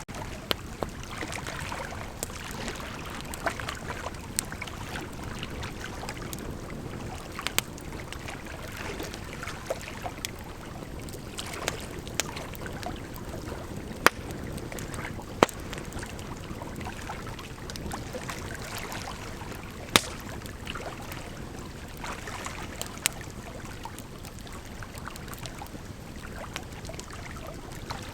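Bonfire burning, a steady rushing hiss with irregular sharp crackles and pops, a few of them much louder than the rest.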